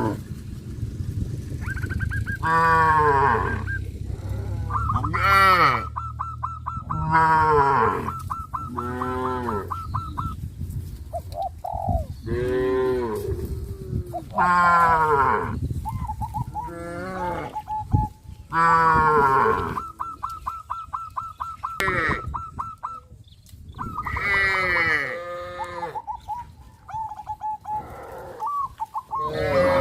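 Cattle mooing again and again: a long series of separate moos, each a second or two long with a bending pitch, following one another every couple of seconds. A thin steady high-pitched tone sounds between many of the calls.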